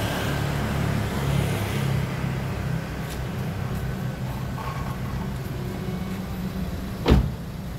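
Small car's engine idling steadily, then a car door shuts with a single heavy thump near the end.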